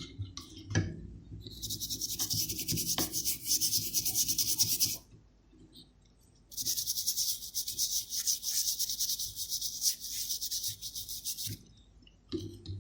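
A brush scrubbing the PS5 board with rapid short strokes in two spells of a few seconds each, with a quiet pause between them: cleaning flux residue off after the APU reball.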